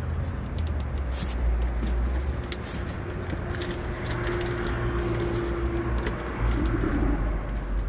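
Packaging being handled while unboxing prints: scattered crinkles and clicks over a steady low rumble, with a faint steady tone for a couple of seconds in the middle.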